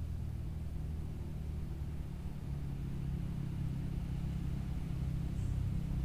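Steady low rumble with a faint hum in it, slowly growing a little louder.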